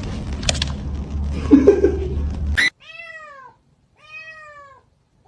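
Rough noise with a low rumble for the first two and a half seconds, cutting off abruptly. Then a cat meows twice, two clear arched meows each under a second long, with a pause between them.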